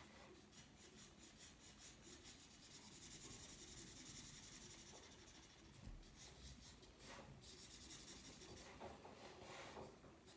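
Faint scratching of a felt-tip marker on paper, shading in quick short strokes all in one direction.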